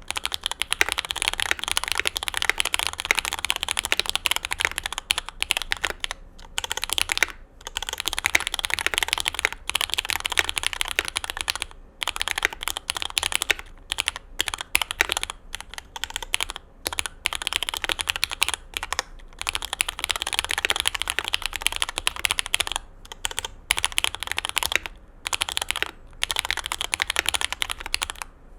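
Fast typing on a Bauer2 mechanical keyboard with SP-Star 80 g switches lubed with Tribosys 3204 and GMK Skiidata keycaps: a dense stream of key clacks, broken by short pauses every few seconds.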